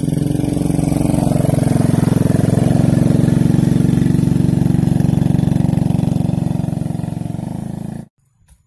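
Small motorcycle engine running hard under load as it climbs a steep dirt slope. It grows louder as it passes close by, then fades as it rides away uphill, and cuts off suddenly near the end.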